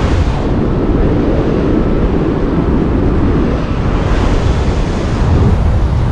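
Airflow of paraglider flight buffeting the camera's microphone: a loud, steady, low rumbling wind noise, with a little more hiss about four seconds in.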